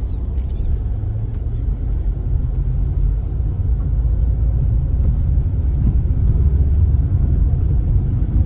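A car driving along: a steady low rumble of engine and tyres, growing a little louder toward the end.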